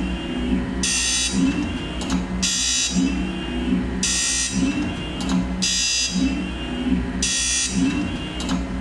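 Rekord Polar automatic chamfer grinder running its auto cycle on an HSS cold saw blade. Each tooth gets a shrill, half-second grind from the wheel, repeating about every one and a half seconds, with a lower mechanical sound between grinds over a steady motor hum.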